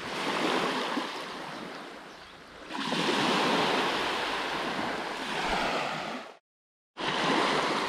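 Small waves washing onto a sandy beach, a steady wash of surf that grows louder about three seconds in. It cuts out completely for under a second near the end, then comes back.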